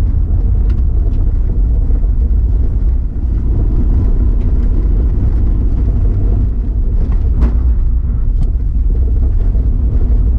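Car on the move: a steady low rumble of road and engine noise, with a few faint light ticks scattered through it.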